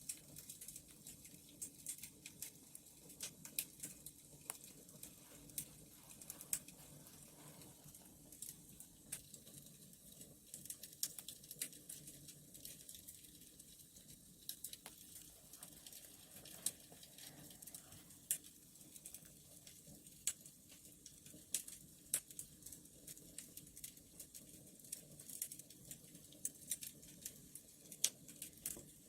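Wood fire crackling, with frequent irregular sharp pops and snaps over a low steady rush of burning.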